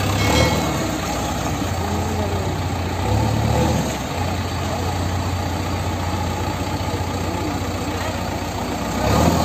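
JCB 3DX Eco backhoe loader's diesel engine running at low revs as the machine manoeuvres, steady throughout. The engine note swells briefly about three seconds in and again near the end.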